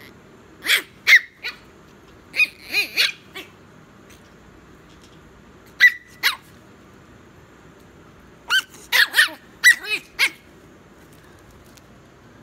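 Chihuahua puppy barking: about fifteen short, high-pitched yaps in four bursts of two to six, with pauses of a second or two between them.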